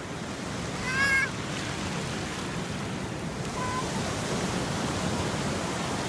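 Small surf washing onto the beach, a steady hiss of breaking water. About a second in comes a short high-pitched cry that bends in pitch, and a fainter brief one a few seconds later.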